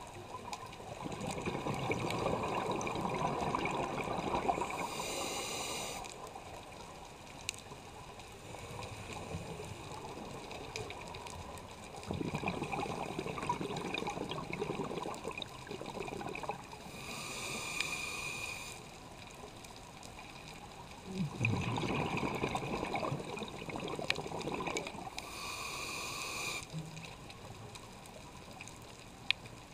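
Scuba diver breathing through a regulator underwater: long stretches of exhaled bubbles rumbling and gurgling, each followed by a short hissing inhale. Three breaths, about ten seconds apart.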